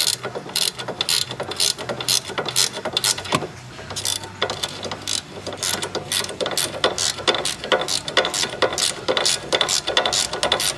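16 mm ratcheting wrench clicking as it is worked back and forth to spin off a stabilizer-bar end-link nut, the stud held still with an Allen wrench. Short runs of clicks repeat a few times a second.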